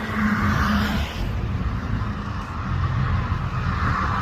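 Steady low rumble of vehicle engines with a hiss above it, from backed-up traffic on a flooded interstate.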